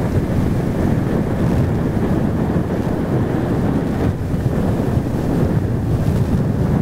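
Wind blowing across the camcorder microphone: a steady, gusty low rush.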